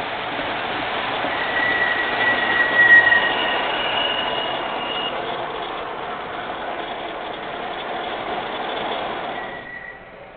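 MTH O-gauge model R40 subway train running into a station and slowing to a stop: a steady rumble of motors and wheels on the track, with thin high squealing tones between about one and five seconds in. The noise fades and drops away near the end as the train halts.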